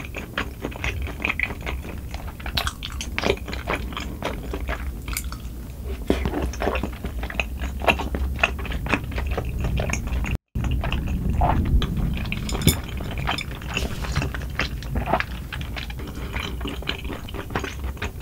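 Close-miked wet chewing and smacking of very chewy bunmoja, thick sweet-potato-starch noodles in cream sauce: many small irregular sticky mouth clicks.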